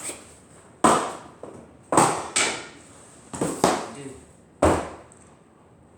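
Replica metal anime sword striking something: six sharp chopping hits, at irregular intervals with two quick pairs among them.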